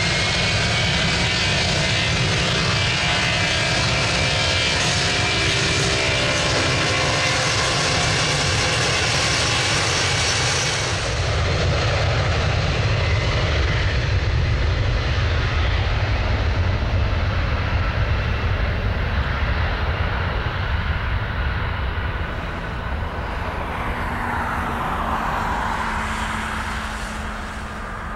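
Boeing 757 jet engines: a high whine with gliding tones, then a heavier, louder rumble from about eleven seconds in as takeoff power builds, fading near the end as the jet lifts off and climbs away.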